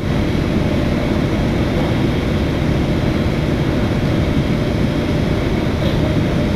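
Steady low rumble of jet aircraft noise with a faint steady whine above it, unbroken and even in level.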